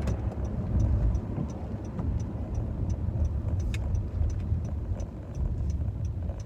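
Inside a Honda's cabin while driving: a steady low engine and road rumble, with a turn-signal indicator clicking evenly about twice a second.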